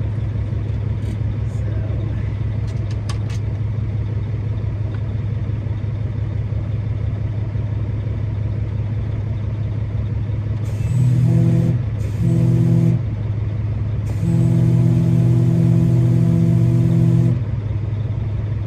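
Cordless drill running in three bursts while driving screws back into a truck's dash panel: two short runs of about a second each a little past halfway, then a longer run of about three seconds. A steady low engine hum runs under it all.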